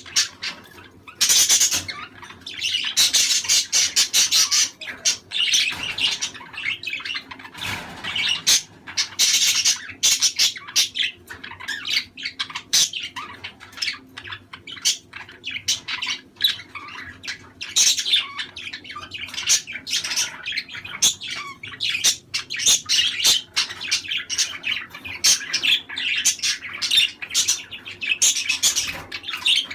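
A flock of budgerigars chattering, with rapid chirps, warbles and squawks overlapping continuously. This is the busy contact chatter that breeders play to encourage pairs to mate.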